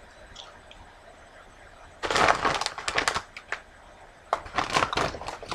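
Fire-roasted veggie tortilla chips crunched while being chewed: two bouts of crisp crackling, one starting about two seconds in and a second near the end.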